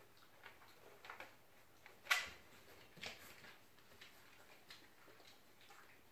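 Lame corgi's claws clicking irregularly on the crate's plastic pan and the hardwood floor as it walks, with one louder clack about two seconds in.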